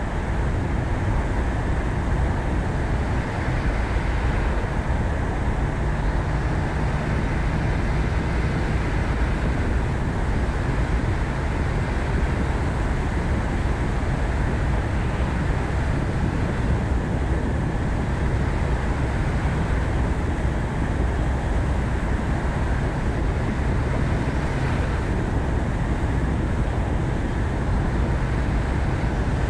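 Ford Focus ST driving at a steady pace: constant road and tyre noise with a low engine hum underneath.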